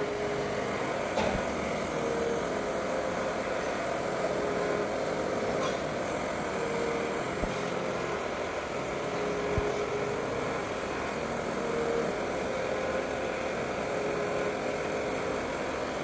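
Handheld canister gas torch burning with a steady hiss, its flame held on the commutator risers of a large DC motor armature while the coil leads are soldered in, with a few faint clicks of hand tools.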